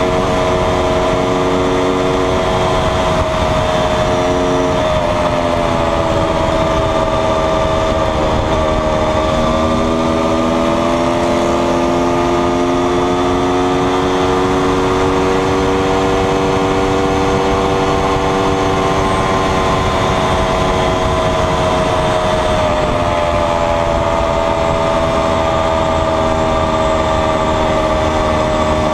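Aprilia V4 sportbike engine running at steady highway speed, over a constant rush of wind noise. The engine note drifts gently up and down a few times as the throttle is eased and opened, with no sharp revs or gear changes.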